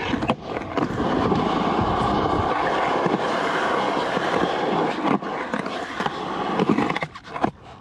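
Skateboard wheels rolling on rough concrete, a steady rumbling roll that briefly drops out about five seconds in and again near the end.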